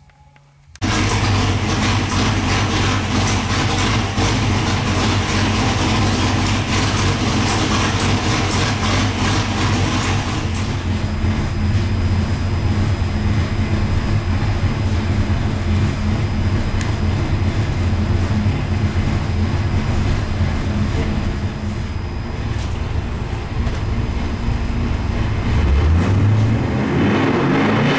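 383 cubic-inch small-block Chevy stroker V8 with a solid roller cam idling loudly and steadily on an engine dyno, a slightly ratty but smooth idle at about 700 rpm. It starts abruptly about a second in, and the revs begin to climb near the end.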